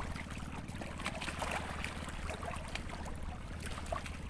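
Small waves lapping and splashing at the water's edge, with irregular little splashes, over a steady low rumble.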